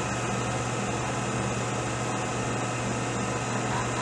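Milling machine spindle turning a large slot cutter slowly in back gear, a steady hum with a faint high whine, running free just before the cutter bites into the barrel's breech.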